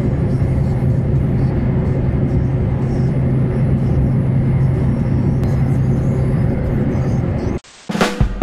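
Steady cabin drone of a car cruising at highway speed, about 88 km/h, with engine hum and tyre and road noise picked up by a dashcam microphone. It cuts off suddenly about 7.5 seconds in, and music with a plucked bass line starts.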